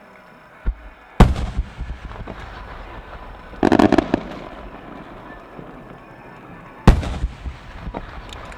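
Aerial fireworks shells bursting: a small thump, then a loud boom about a second in, a quick cluster of bursts about four seconds in and another loud boom about seven seconds in, with scattered smaller cracks after the booms.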